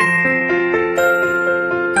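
Background music of sustained pitched notes, the chord changing about once a second.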